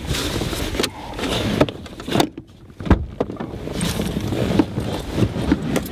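SUV cabin noise driving slowly over a rough, rutted dirt track, with sharp knocks and rattles from the bumps; the noise drops away briefly a little before halfway through.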